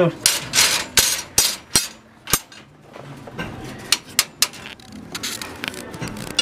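Steel rebar of a wire-tied column cage knocking and clanking as it is handled and set in place: a quick run of sharp knocks over the first two seconds, then scattered ones.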